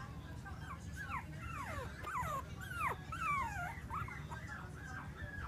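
Young Bichon Frise puppies whimpering and squeaking as they play-wrestle: a run of short, high-pitched whines that mostly slide downward, thickest around the middle.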